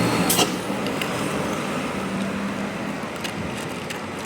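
Road traffic noise of a vehicle passing and slowly fading. A horn's held tones stop at the very start, and a single sharp click comes under half a second in.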